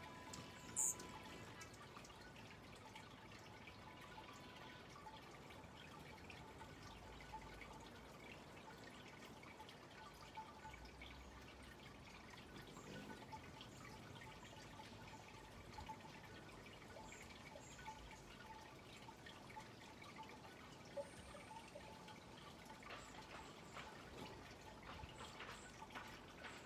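Quiet yard ambience with faint, sparse short bird chirps and ticks. There is one sharper high chirp about a second in.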